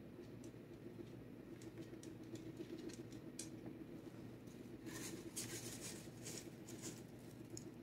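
Faint clicks and rustles of kitchen dishes and utensils being handled on a counter, over a low steady hum, with a denser run of clicks about five to seven seconds in.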